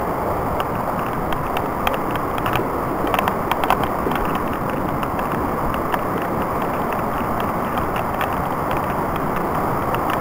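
Steady rushing of the Nubanusit Brook's fast water, with a few light clicks of footsteps on the leaf-covered trail about two to four seconds in.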